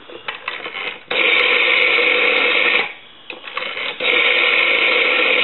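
Rotary dial of a GPO 300-series telephone wound round by finger and let go twice, each time running back with a steady whirr, the first return about a second in, the second about four seconds in. The dial returns slowly and is not dialing properly.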